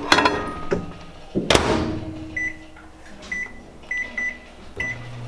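Microwave oven in use: a clunk as a container goes in, the door shut with a loud knock about a second and a half in, five short keypad beeps as the cook time is entered, then the oven starts up with a steady low hum near the end.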